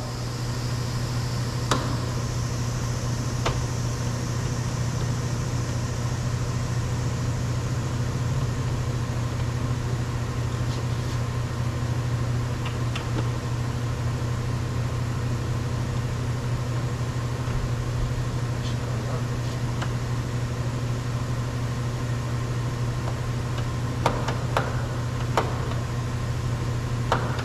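Steady low machine hum throughout, with a few faint clicks and small knocks of a screwdriver working the retaining screw inside a car door handle, a small cluster of them near the end.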